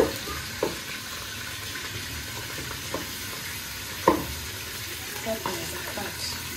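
Minced beef sizzling as it browns on high heat, stirred and broken apart with a wooden spoon that knocks against the pot a few times, most sharply at the start and about four seconds in.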